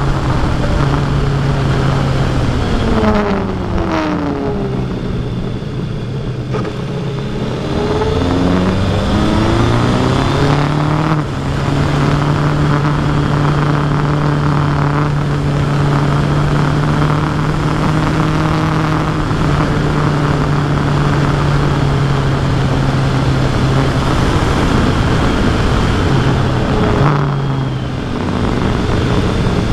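Kawasaki Versys 1000 SE's inline-four engine running under way with rushing wind. The engine note falls away a few seconds in as the throttle is rolled off, climbs back and holds a steady cruise, and dips briefly near the end.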